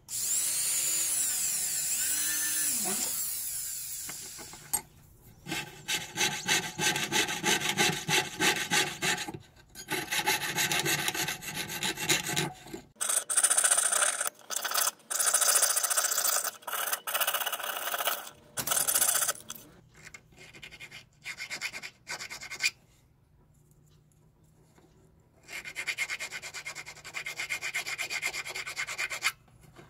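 A flex-shaft rotary tool drilling a small silver plate, its pitch rising and falling as the speed changes, stops after about four seconds. Then a jeweler's saw cuts through the silver in long runs of fast strokes with pauses, and near the end a needle file rasps the cut opening.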